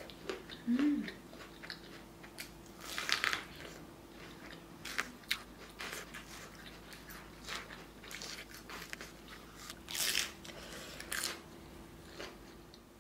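Biting into and chewing sweet corn on the cob (chodang corn), crisp kernels crunching in a string of separate bites.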